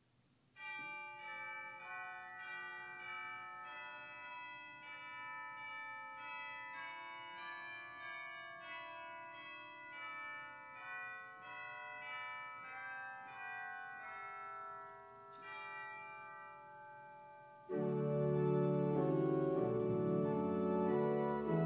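Church pipe organ playing a slow prelude of sustained chords on soft, high stops. About 18 seconds in, fuller stops with deep bass notes come in and it becomes much louder.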